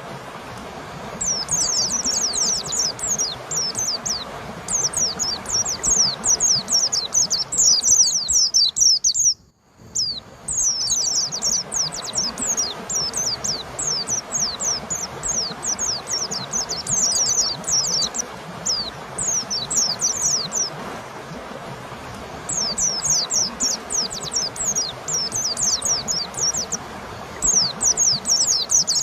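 White-eye (pleci) singing in long, fast runs of high, downward-sweeping notes over steady background noise. The sound cuts out for about half a second a third of the way through, and the song pauses briefly about two-thirds in.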